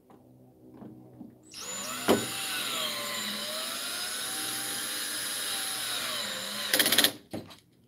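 Cordless drill/driver driving a screw into a TV's plastic back panel: the motor runs for about five seconds with a whine that rises and falls with the trigger. Near the end the clutch, set to its lowest setting, slips in a quick rattle of clicks as the screw seats.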